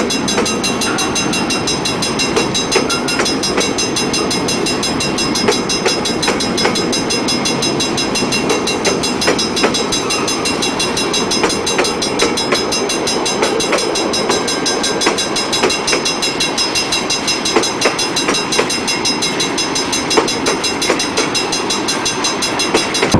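A train rolling past on the rails, its wheels clicking irregularly over the rail joints in a steady run of wheel and track noise.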